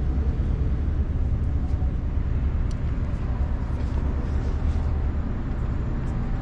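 Dodge Charger's 3.6-litre V6 idling, a steady low rumble with a fine flutter, running after a misfire repair in which a holed ignition coil was found.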